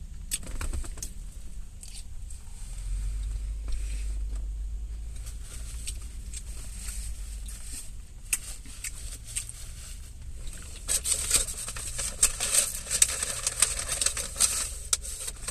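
Close-up eating sounds: chewing a mouthful of salad, with small clicks and scrapes of a plastic fork in a fibre bowl, over a low steady rumble. About eleven seconds in comes a few seconds of dense crackly rustling.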